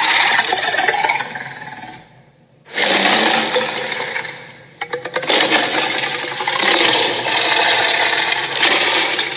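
A string of noisy, mechanical-sounding sound effects in three loud bursts: a short one at the start, another about 3 seconds in, and a longer one from about 5 seconds in with a patter of clicks as it begins.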